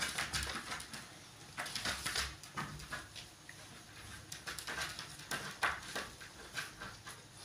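A dog pawing and scratching at the bottom of a wooden door, in irregular bouts of scraping and light knocks.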